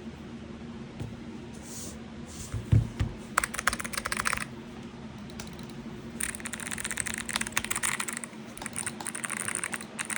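Rapid typing on a Lemokey P1 Pro mechanical keyboard: a short burst of quick key clicks about three seconds in, then a longer run of key presses from about six seconds in. A dull thump comes just before the first burst.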